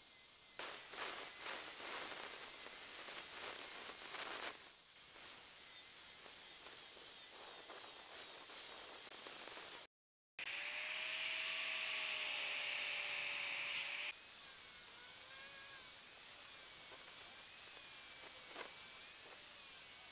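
Angle grinder with a wood-carving disc cutting into a wooden log: a hissing, rasping grind with a wavering whine as the disc bites and the motor speed changes under load. The sound cuts out briefly just before the middle.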